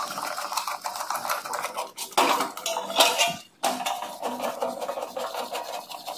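Sheet-metal breaker panel cover being handled, giving irregular metallic clinks and rattles, loudest about two and three seconds in.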